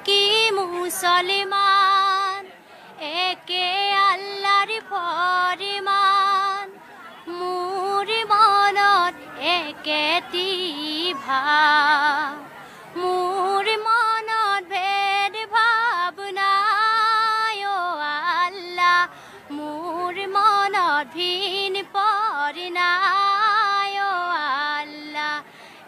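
A young woman singing an Assamese zikir, an Islamic devotional song, solo and unaccompanied, in long melodic phrases with short pauses between them.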